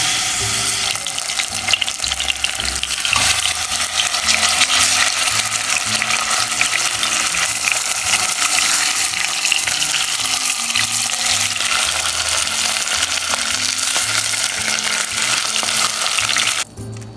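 Chicken breasts sizzling as they fry in hot oil in a pot, turned with metal tongs. A steady, loud sizzle that cuts off suddenly near the end.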